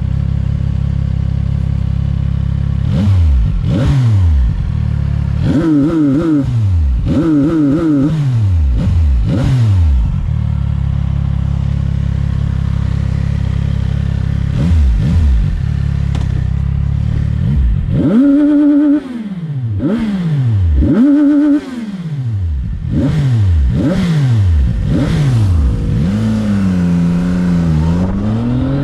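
CFMOTO 675NK's inline three-cylinder engine idling steadily, then revved in a series of quick throttle blips that climb and fall back to idle. Two higher revs come about two-thirds of the way in, and near the end the pitch dips and climbs again more slowly.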